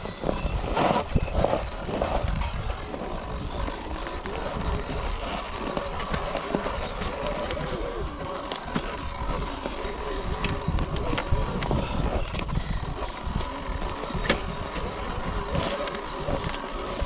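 Sur-Ron electric dirt bike riding over a rough dirt trail: wind buffeting the microphone, with tyres, chain and bodywork knocking and rattling over the bumps and a faint motor whine that wavers with speed. The knocks are most frequent in the first couple of seconds.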